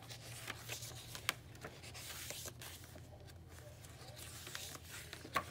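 Paper and cardstock pages of a handmade junk journal being turned and handled: soft rustling with a few light clicks, a sharper one about a second in and another near the end, over a faint low hum.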